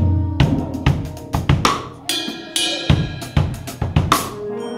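Music with a drum kit playing a steady beat: bass drum, snare and cymbal hits, joined by bright pitched notes about two seconds in.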